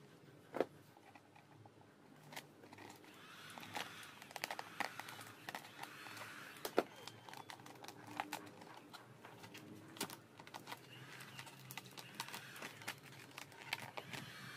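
Vinyl sticker film crinkling and rustling as it is handled and pressed onto a scooter body panel with a plastic squeegee, with scattered small clicks and taps.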